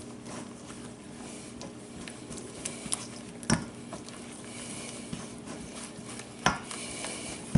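Red silicone spatula stirring a dry, crumbly chocolate frosting mix in a stainless steel mixing bowl: a steady scraping, broken by a few sharp knocks against the bowl, the loudest about three and a half seconds in, again about six and a half seconds in, and at the end.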